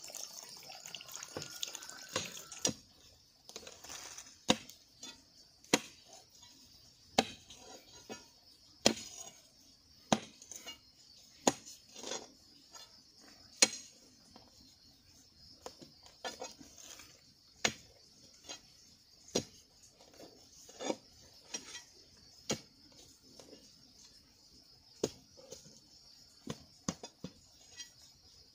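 A long iron digging bar driven again and again into a hard clay bank, each stroke a sharp strike about every second and a half.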